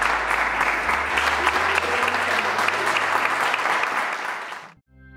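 Audience applauding steadily, cut off abruptly near the end.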